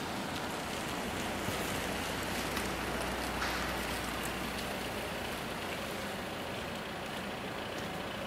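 The electric warning bell of a Czech level crossing (AŽD 97 system) ringing steadily while the barriers are down. Under it runs the low noise of road vehicles, and a car pulls up close near the end.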